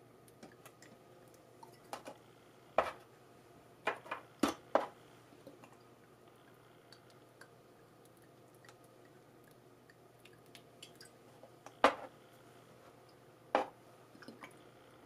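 About half a dozen sharp taps and clicks of small objects being handled, most of them clustered about three to five seconds in and two more near the end, over a faint steady hum.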